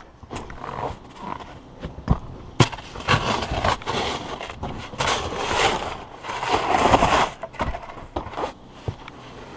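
A snow shovel scraping and crunching through packed snow, with scattered sharp knocks; the scraping is loudest for several seconds in the middle.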